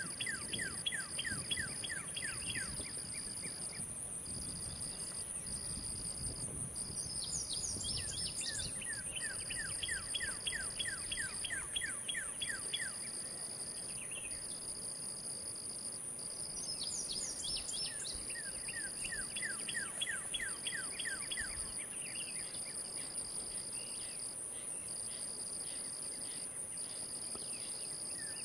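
Chorus of insects: a steady high buzz with a second, pulsing trill that breaks off and starts again every few seconds. A call made of rapid falling notes repeats in runs of about three seconds, several seconds apart.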